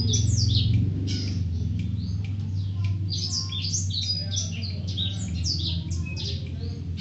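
Long-tailed shrike (cendet) singing a rapid, varied run of short, high, downward-sweeping chirps and squawks, over a low steady hum.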